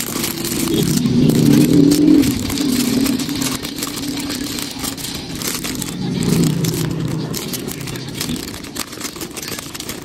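Clear cellophane bag crinkling and rustling as it is gathered and handled around a glass candle jar. A low rumble swells in the background twice, loudest a second or two in and again around six seconds.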